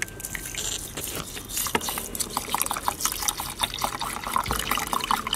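Water poured from a 2-litre plastic bottle into a rice cooker's inner pot over rice, an uneven, bubbly trickle as the pot fills for cooking.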